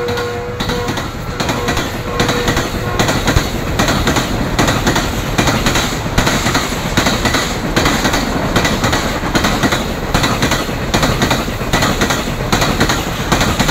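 Green Line express passenger coaches passing close at high speed, with a rhythmic clatter of the wheels over the rail joints. The locomotive's horn trails off in the first second or two.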